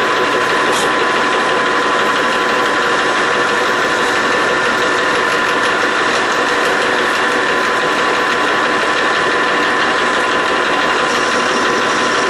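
Metal lathe running steadily as it turns a steel bar, a continuous mechanical whine with a fixed tone.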